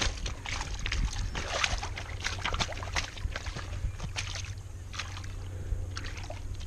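Rubber boot stamping a paper bag of mortar mix down into a muddy, water-filled hole, making irregular repeated squelches and sloshes of mud and water.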